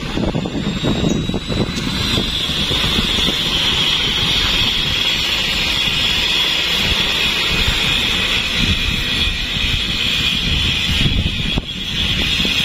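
Toyota dump truck's diesel engine running as the truck pulls away through mud, with a steady high whine over the engine noise from about two seconds in.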